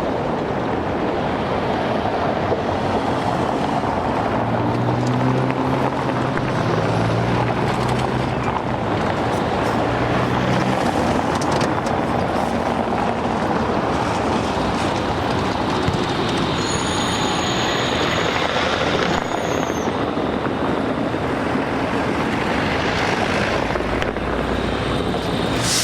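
Steady city street traffic noise. A low motor hum shifts in pitch for several seconds early on, and a high whine lasts a few seconds in the second half, dropping in pitch as it ends.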